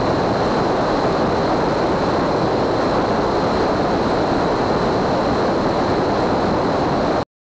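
Light aircraft in fast flight heard through a camera mounted outside the airframe: a steady rush of wind and engine noise with a thin steady high whine. It cuts off suddenly near the end.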